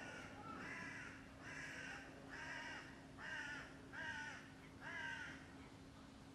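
An animal call repeated about six times at an even pace, just under a second apart. Each call is a short, harsh note that rises and falls in pitch, and the last three are the loudest.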